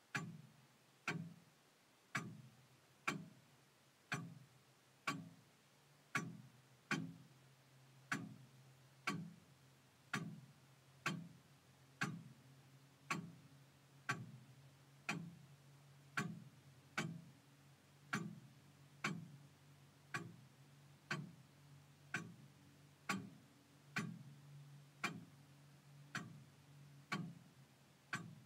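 Longcase clock ticking, about one tick a second, with a faint low hum beneath.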